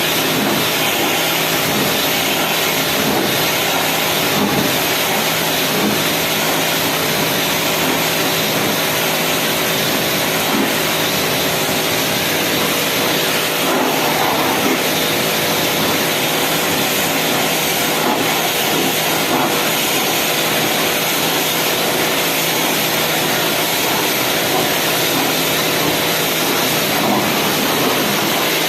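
Loud, steady machine noise: a motor hum with a hiss over it, unchanging throughout.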